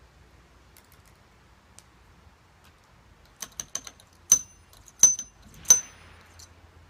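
Ramrod worked down the barrel of a muzzle-loading underhammer pistol to seat the charge: a quick run of light metallic clicks about halfway through, then three sharp strikes about two-thirds of a second apart, each with a short high ring.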